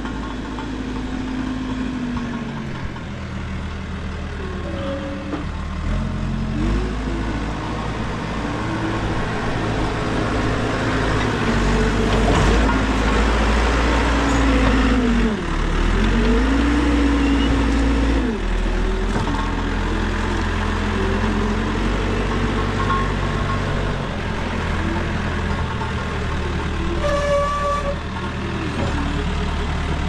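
Caterpillar 416B backhoe loader's diesel engine running under load, its revs rising and falling again and again as it drives and digs the front loader bucket into a dirt pile. It is loudest about halfway through, when the bucket is pushed into the pile.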